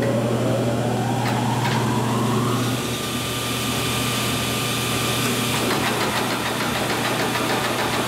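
Large Monarch engine lathe's electric drive motor starting up. A whine rises in pitch for about the first two and a half seconds, then the motor runs steadily over a strong electrical hum.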